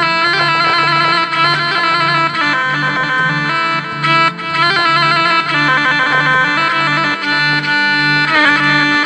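Arranger keyboard playing its rababa (rebab) voice in a taqasim improvisation: a sustained, bowed-sounding melody with sliding pitch bends near the end, over a low pulse repeating about one and a half times a second.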